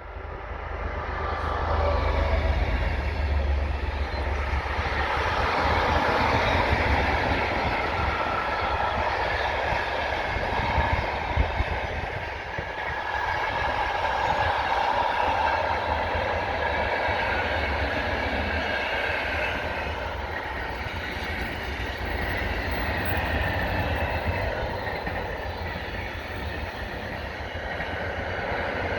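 Freight car train hauled by a Class 66 diesel locomotive passing, its car-carrier wagons rolling by with a steady rumble and wheel clatter. The sound builds over the first couple of seconds, then holds.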